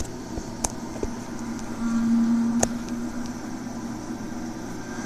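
Steady low mechanical hum with a few light clicks and a short held tone about two seconds in.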